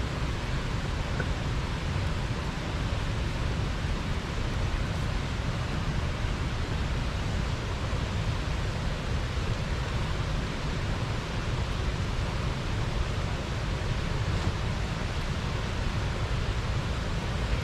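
Steady rush of water spilling over a small river weir.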